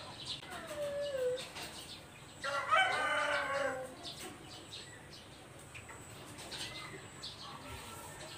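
A rooster crowing: one long crow about two and a half seconds in, dropping in pitch at its end, with a fainter call before it.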